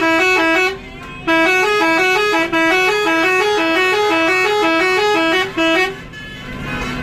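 Bus telolet horn, a multi-tone musical horn, playing a quick up-and-down tune of alternating notes. It breaks off briefly about a second in and stops about six seconds in.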